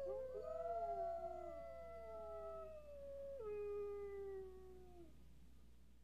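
A chorus of animal howls: several long, overlapping howls, each held and sliding slowly downward in pitch, with a fresh set starting about three and a half seconds in, fading out at the end.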